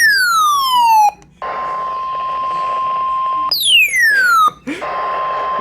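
Weather radio alert tone: a steady single beep over radio static, the attention signal ahead of a warning broadcast. It is cut twice by a loud swoop that falls steeply in pitch over about a second.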